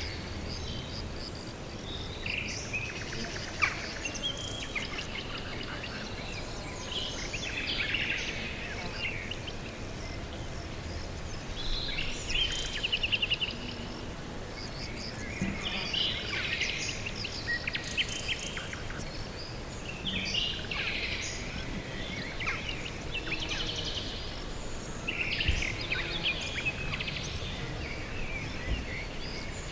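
Songbirds singing in short bursts of rapid chirps and trills every few seconds, over a steady low background hiss.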